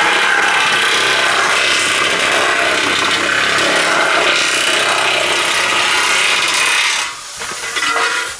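Makita electric nibbler cutting through heavy corrugated tin sheet, its punch chewing through the metal in a loud, steady run. The sound drops about seven seconds in as the cut ends, and a quieter sound lasts about another second.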